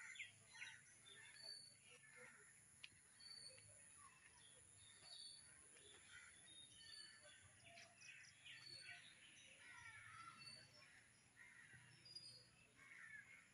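Faint birdsong in trees: several birds chirping, one with a short high note repeated about once a second, over a steady faint high hiss.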